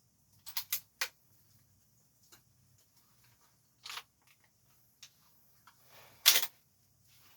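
APS CAM870 MK3 airsoft pump-action shotgun being handled during a one-handed reload: a quick run of three clicks, a single click a few seconds later, and near the end a louder, longer clack.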